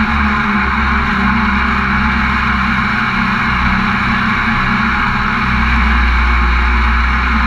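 Mini jet boat's engine running steadily under way, a continuous drone.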